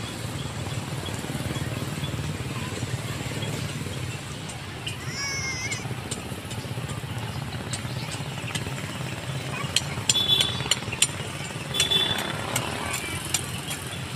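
Outdoor town-square ambience: a steady low rumble of traffic with faint distant voices. A short warbling high call comes about five seconds in, and a few sharp clicks and taps come about ten to twelve seconds in.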